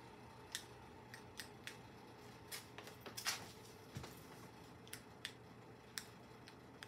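Quiet kitchen room tone with a steady faint hum and about a dozen faint, irregular clicks and taps, a little louder around three seconds in.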